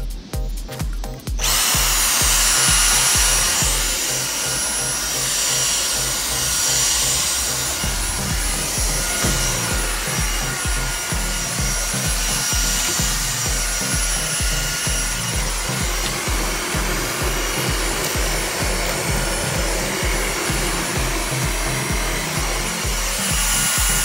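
Dyson V6 Motorhead+ cordless stick vacuum switching on about a second and a half in, then running steadily with a high whine as its motorized brush head is pushed over a rug. Background music with a steady beat plays throughout.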